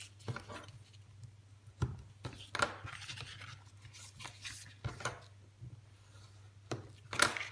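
Black cardstock being folded by hand and creased with a bone folder: a handful of short paper rustles and scrapes, the loudest near the end.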